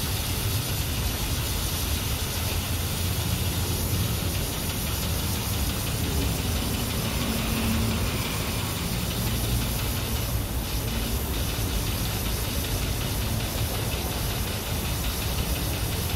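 BMW E36 engine idling steadily while steam hisses out of its overheated cooling system near the radiator and expansion tank, a sign of boiling coolant.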